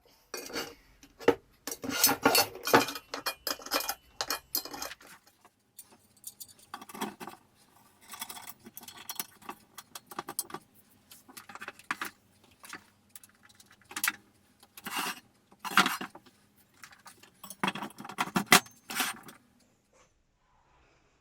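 Small metal parts of a drill press clinking and jangling as they are handled during unpacking and assembly, in irregular bursts of rattling with short pauses between. The rattling stops a little before the end.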